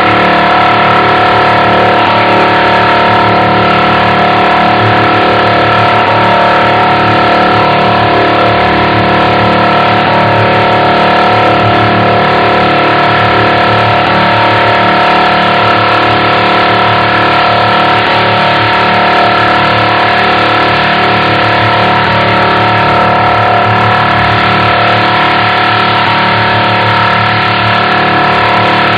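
Robot vocoder effect from the Voice Changer Plus app, slowed to half speed: a loud, unchanging electronic drone of several fixed pitches over a hiss.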